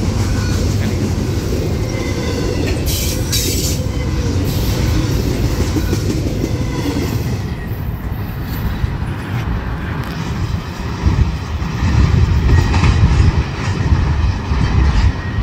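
Freight train of intermodal well cars loaded with tank containers rolling past close by: a steady rumble of steel wheels on the rails with clickety-clack over the rail joints.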